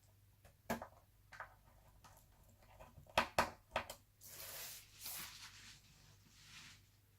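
Laptop parts being handled during reassembly: a few sharp clicks and taps of plastic and metal, then short scraping and rustling sounds.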